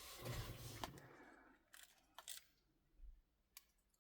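Faint handling noise: a short rustle, then a few small, scattered clicks and taps from the phone and small repair tools being handled, over near silence.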